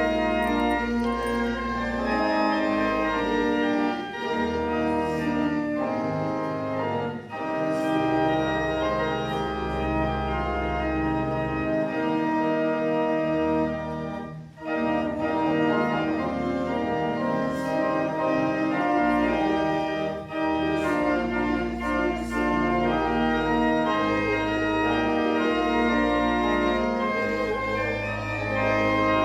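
Church pipe organ playing a slow hymn in held chords with a deep pedal bass, pausing briefly between phrases.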